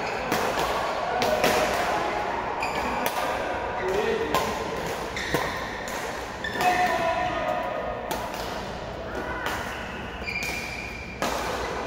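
Badminton rally: sharp racket strikes on the shuttlecock every second or so, with court shoes squeaking on the floor and voices in the background, echoing in a large sports hall.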